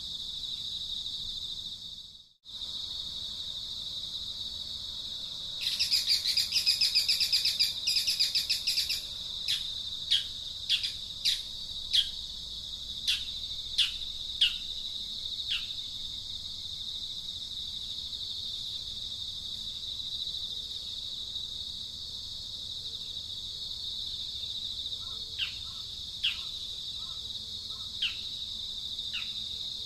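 Outdoor ambience: a steady high-pitched insect drone, with a loud rapid pulsing trill for about three seconds from around six seconds in. About a dozen short, falling bird calls follow over the next ten seconds, and a few more come near the end. The sound drops out briefly about two seconds in.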